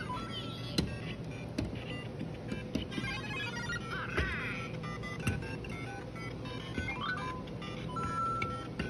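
Interactive LEGO Luigi figure's small speaker playing electronic game sound effects: short beeps, fast chirping glides and snatches of tune, with a few sharp plastic clicks as the figure is handled on the bricks.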